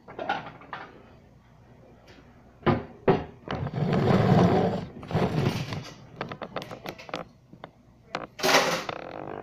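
Handling noise from a camera being picked up and carried: two sharp knocks, a stretch of rubbing and rustling, a run of short knocks, and a louder rush of scraping noise near the end.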